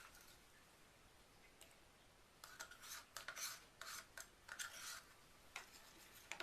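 Faint scraping and rubbing of small objects being handled, in several short bursts after a quiet start, with a couple of light clicks near the end.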